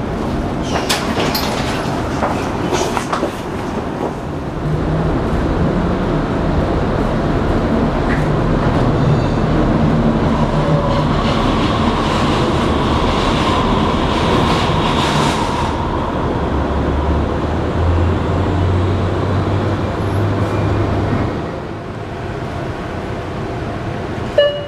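A 1948 St. Louis-built PCC streetcar running on its rails, heard from inside the car: steady rolling noise with clicks of wheels over the track. A light-rail train passes close alongside about halfway through. The noise drops about three-quarters of the way in, and a single sharp click comes near the end.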